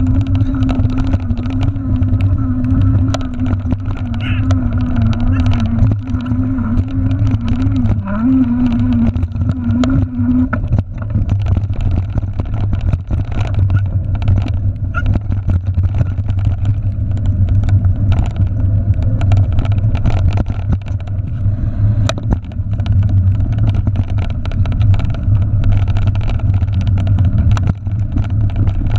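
Mountain bike rattling and rumbling over a rough, muddy dirt trail at speed, with wind buffeting the handlebar-mounted camera: a steady low rumble full of small knocks and clicks. A wavering hum runs under it for about the first ten seconds, then stops.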